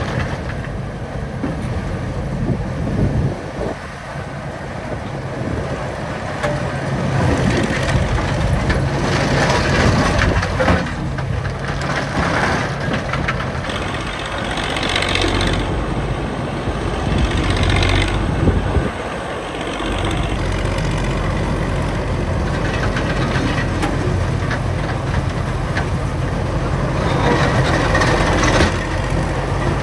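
Engines of antique heavy construction machinery running as they work. The engine sound swells and eases in stretches over a steady low rumble.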